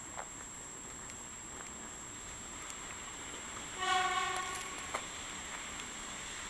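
A horn sounds once, a short blast of under a second about four seconds in, over steady faint outdoor background noise.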